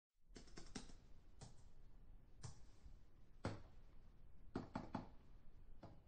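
Computer keyboard typing heard from a distance: faint, irregular keystrokes, several quick ones together, then pauses of up to a second.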